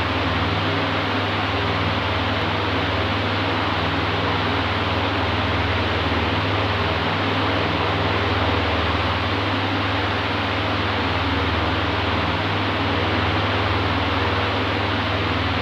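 Oscillating electric fan running steadily: an even rush of air over a low motor hum.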